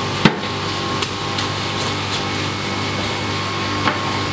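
Several sharp, irregularly spaced knocks, the loudest about a quarter second in, over a steady mechanical hum.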